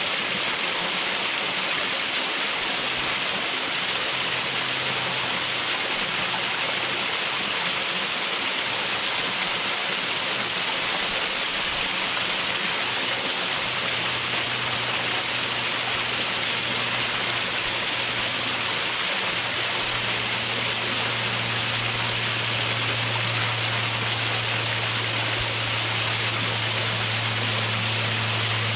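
Waterfall rushing steadily, a constant even hiss of water splashing over rock into a creek pool.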